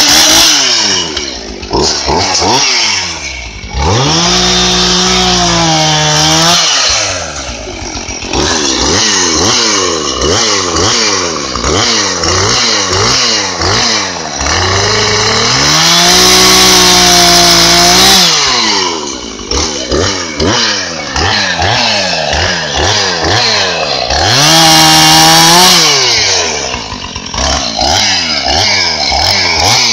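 Gasoline chainsaw running, its engine speed rising and falling repeatedly, and held at full throttle for about two seconds three times, about 4, 16 and 24 seconds in.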